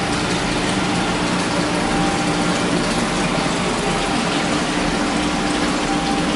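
Water from an aquaponics system's return pipe splashing steadily into a fish tank, with a steady low hum underneath.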